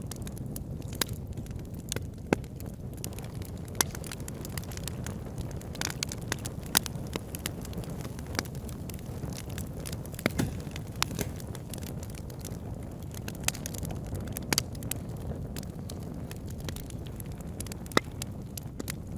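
Wood fire burning in a fireplace: a steady low rumble of the flames with irregular crackles and sharp pops, a few of them louder.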